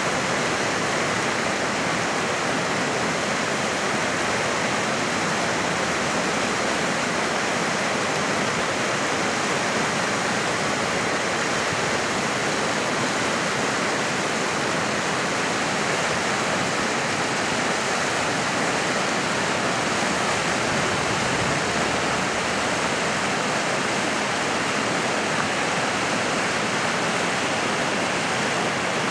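River water rushing steadily over rocks: an even, unbroken rush of water.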